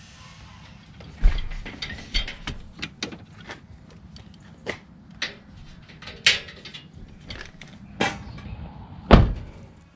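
Clicks, knocks and rattles of gear being handled through a pickup truck's open rear door, with a heavy thud near the end.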